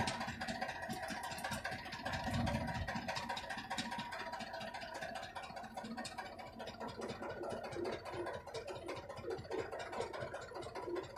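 Tractor engine idling steadily with its hydraulics engaged to work the laser land leveler, a faint steady whine running over the engine note. A brief low rumble comes about two seconds in.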